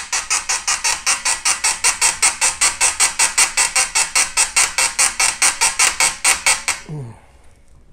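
Seized brass tube of a vintage bugle squeaking in its corroded, oil-soaked joint as it is twisted by hand. It makes a rapid, regular series of sharp squeaks, about five or six a second, which stops about seven seconds in.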